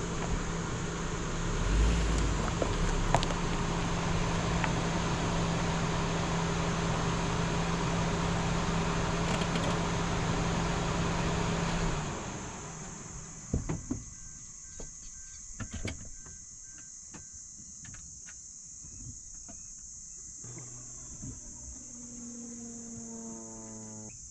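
A motor runs with a steady low hum and rushing noise for about twelve seconds, then cuts off suddenly. Insects keep up a steady high chirring, with a few clicks and knocks.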